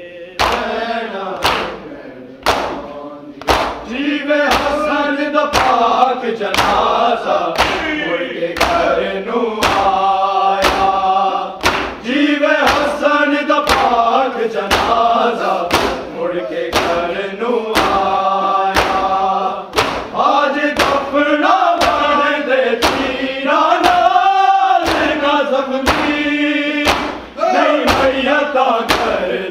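A noha, a Shia lamentation chant, sung by a group of voices in a rising and falling melody, kept in time by sharp, even beats a little over once a second.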